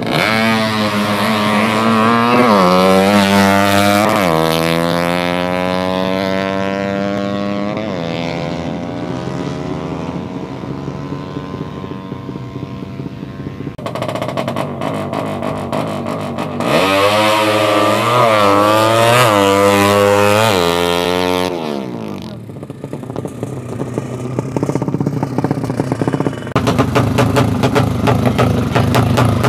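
Drag-racing motorcycles revving hard and pulling away down the strip, the engine note climbing and dropping in steps as they change gear; one run starts right away and a second about halfway through. Near the end a single motorcycle engine runs close by with a fast, rough beat.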